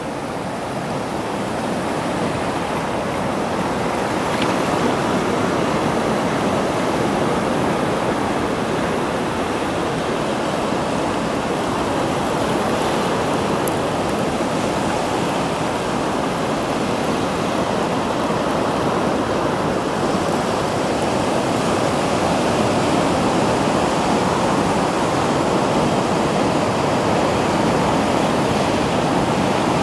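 Small sea waves washing and swirling over rocks in shallow water: a steady, continuous rush of surf that grows a little louder over the first few seconds.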